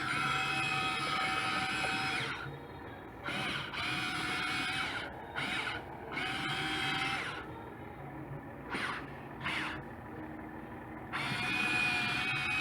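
Top Race 1:14 scale metal RC excavator's electric motors and gearboxes whining in bursts of a second or two as its functions are worked, stopping briefly between moves. Near the middle there are two short rising whines.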